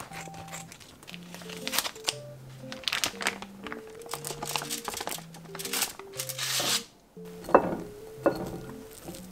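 Crinkling and rustling of a foil pouch and aluminium foil as the pouch is cut open with scissors and its contents slid onto a foil-lined tray, in quick irregular bursts. Near the end, two dull thuds as cooked rice is tipped into a glass bowl, the loudest sounds here.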